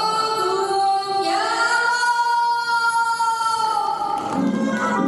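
Music with a woman singing, holding one long note through the middle.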